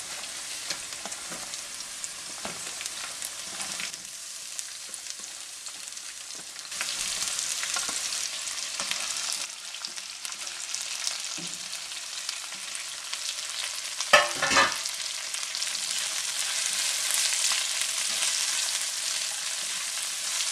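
Sliced onions and green chillies sizzling as they go into hot coconut oil in a wok, the frying getting louder about seven seconds in. Two sharp, ringing clanks come at about fourteen seconds, and a spatula stirs the onions near the end.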